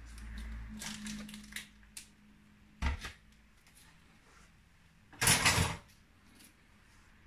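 Plastic yogurt pots being handled and opened over a glass bowl: light rustling, a sharp click about three seconds in, and a brief loud scraping rustle a little past five seconds.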